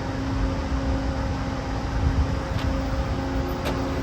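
Steady mechanical hum and low rumble of the Morgantown Personal Rapid Transit system, with a constant drone, and two faint clicks about two and a half and three and a half seconds in.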